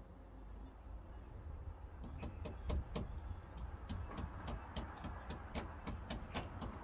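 A ratchet spanner clicking in quick, even strokes, about four clicks a second, starting about two seconds in, as a 10 mm nut on the van is worked.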